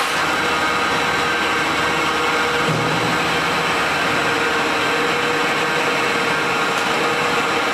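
Wood crusher (sawdust machine) running: a steady, dense mechanical noise with a constant hum.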